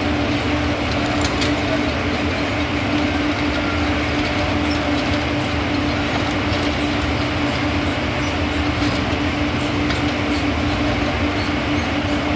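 A rail vehicle running steadily: a continuous rumble with a constant hum held at one pitch and no change in level.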